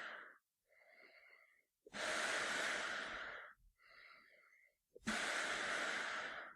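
A man breathing slowly through a gas mask: long, loud, hissing breaths alternate with quieter, shorter ones, about one full breath cycle every three seconds.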